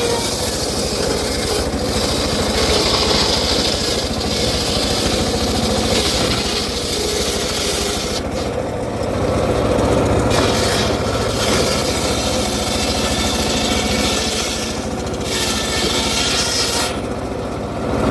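Circular saw cutting acacia wood: the blade runs steadily with a continuous rasp of timber being cut, which eases off briefly a few times.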